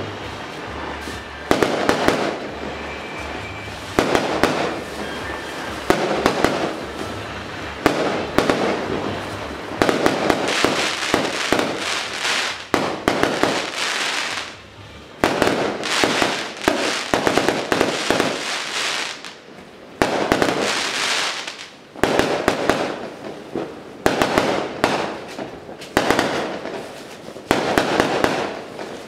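Fireworks and firecrackers going off: dense rapid bangs and crackling in surges that start suddenly about every two seconds and fade away, over and over.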